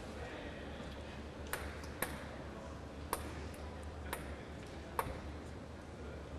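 Table tennis rally: the celluloid ball ticks sharply off the bats and the table, about five clear ticks roughly a second apart with fainter ones between, over a steady low hum.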